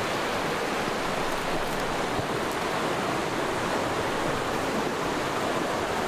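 Fast-flowing stream rushing over rocks: a steady, even water noise.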